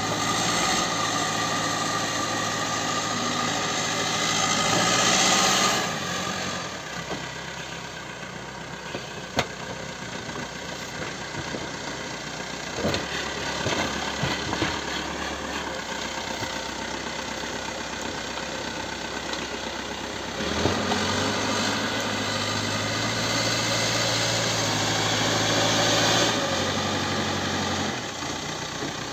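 CAT 434E backhoe loader's four-cylinder diesel engine running, its note stepping up twice under working load and then dropping back. A few sharp metallic knocks sound in between.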